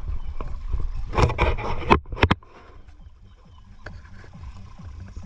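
Wooden dugout canoes being paddled: splashes and sharp knocks of the paddles in the first two and a half seconds, then quieter water sounds, over a steady low rumble.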